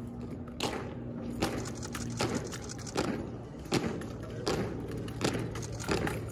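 Armed drill team working drill rifles in unison, making sharp knocks in a steady cadence of about one every three-quarters of a second.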